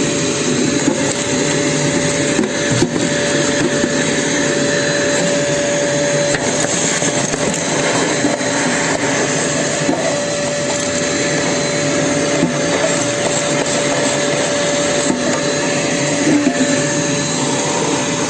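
Ash vacuum cleaner running steadily: the motor gives a constant whine over the rush of air.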